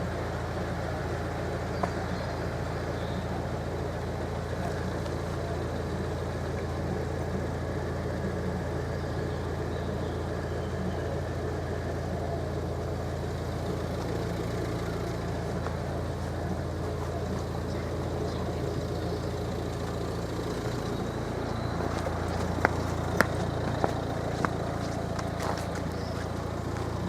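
Steady low hum of a motor vehicle's engine running, with a few sharp clicks near the end.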